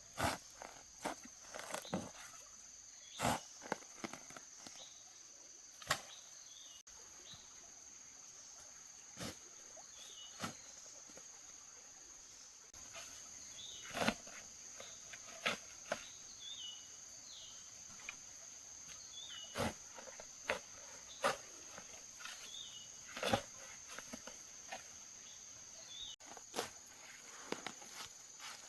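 Sharp single knocks at irregular intervals, one every one to three seconds, over a steady high-pitched insect drone, with short bird chirps in between.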